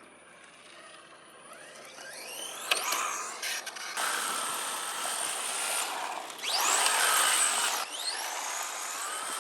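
Electric RC car's brushed motor and four-wheel-drive gear train whining as it accelerates in several short runs, the pitch climbing steeply each time, with the loudest run about two-thirds through. The strange noise is what the owner later traces to slight backlash on a gear's axle in the transmission.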